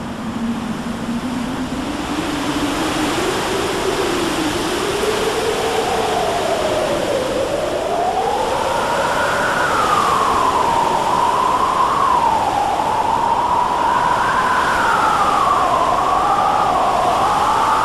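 Storm wind howling: a wavering tone that climbs slowly over the first ten seconds, then swells up and down, over a steady rush of wind noise and surf.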